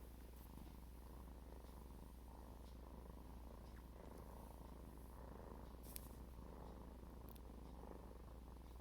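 A domestic cat purring steadily and softly, with one faint click about six seconds in.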